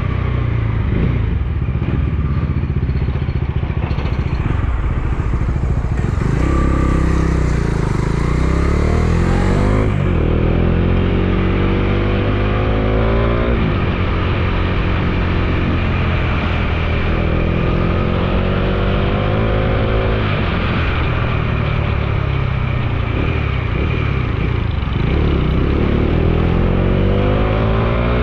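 Bajaj Dominar 250's single-cylinder engine under way, accelerating through the gears: its pitch climbs, drops back at each shift and climbs again several times, over a steady low rumble of wind on the microphone.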